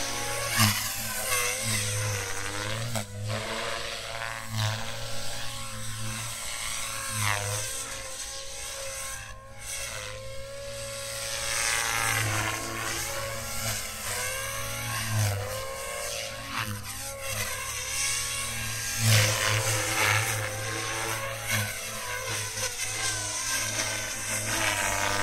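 Compass Warp 360 electric RC helicopter flying aerobatics: the whine of its motor and the buzz of its rotor blades rise and fall in pitch again and again as it swoops toward and away from the listener.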